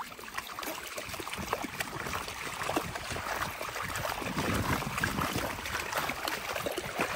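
Several dogs' paws splashing through shallow water, a busy run of small quick splashes that grows louder about four seconds in.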